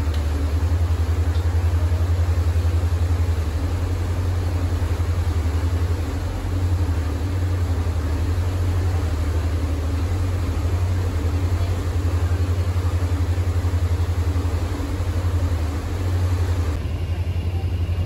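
A ferry's engines droning low and steady with a fast even throb, over the rushing of the churned-up wake. The sound turns duller near the end.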